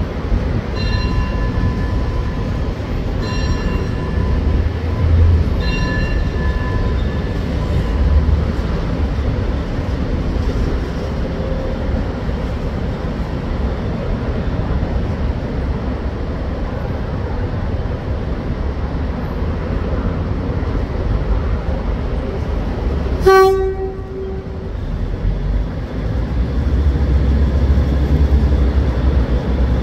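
Diesel railcar rolling slowly in with a steady low engine rumble, sounding its horn in three blasts in the first several seconds. A short, sharp lower-pitched toot comes later, and the engine rumble grows louder near the end.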